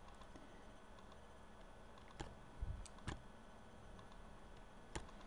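A few faint, sharp clicks and one dull low tap over quiet room tone: a pen stylus tapping on a tablet while writing.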